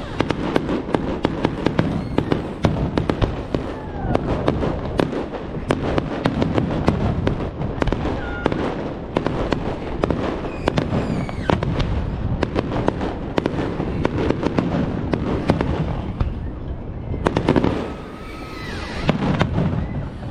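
Fireworks display: shells bursting one after another in a dense, rapid series, with some whistling among the bangs. The bursts ease off briefly near the end, then pick up again.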